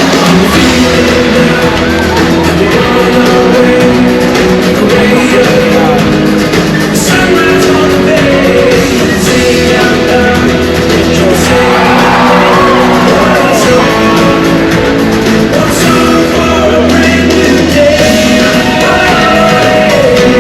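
Loud show music with singing, played throughout.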